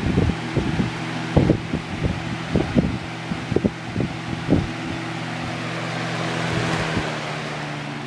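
Lasko 3733 20-inch box fan running on high: a steady motor hum under the rush of air from the blades, with irregular low thuds every few tenths of a second through the first half.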